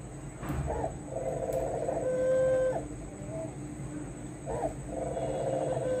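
Dove cooing: a short note, a long drawn-out coo and a brief closing note, heard twice about four seconds apart.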